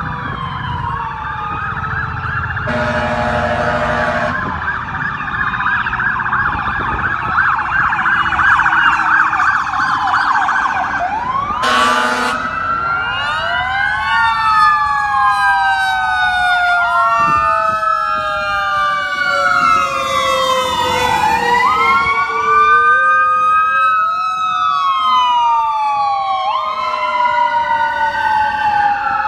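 Emergency vehicle sirens: a fast warbling yelp for the first dozen seconds, then several overlapping sirens wailing slowly up and down. Two horn blasts cut through, a longer one about three seconds in and a short one at about twelve seconds.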